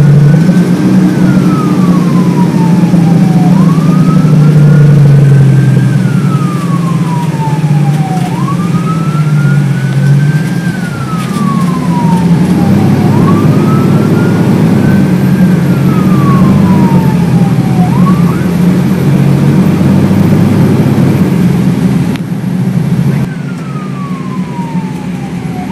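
Fire engine siren wailing in a slow rise-and-fall cycle, about every four to five seconds, over the steady drone of the truck's diesel engine, heard from inside the cab. The wail breaks off about three quarters of the way through and comes back near the end.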